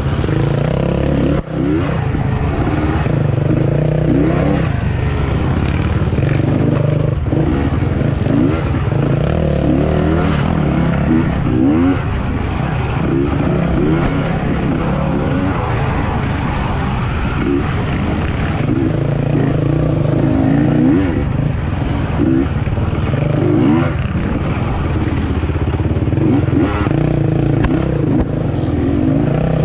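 A racing engine running hard, revving up and falling back again and again over a steady low drone.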